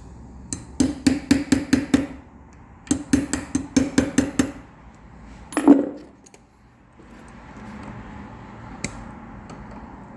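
Small hammer tapping a punch to drive a retaining pin out of a Mercedes-Benz door lock: two quick runs of about seven light metallic taps, then one harder single strike with a short ring.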